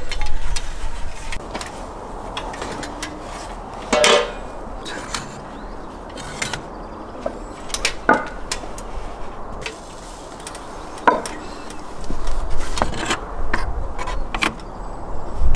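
Scattered clanks and knocks of metal against brick as the round metal lid of a brick tandoor is lifted off and the hanging lamb inside is handled. A few louder clanks ring briefly, about four, eight and eleven seconds in.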